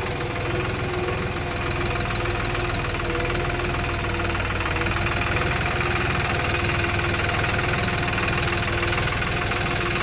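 Small tractor's engine running at a steady speed as the tractor drives along, its pitch holding level.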